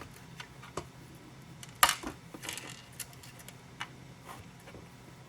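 Small hard parts clicking and clinking as they are handled, with one sharper, louder click about two seconds in and a few lighter clicks around it. A faint steady low hum sits underneath.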